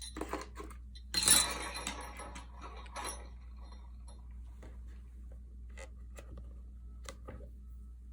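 Small clinks and light knocks of objects being handled on a table, with a louder rustle about a second in and faint scattered clicks after it.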